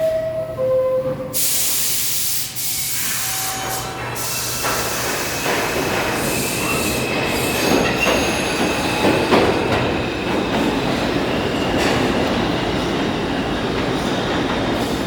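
R142 subway train on the 4 line: the door chime ends with a lower second note, and a burst of hiss comes about a second in as the doors close. From about four seconds in, the train pulls out and runs with a steady rumble and a faint high squeal from the wheels or motors.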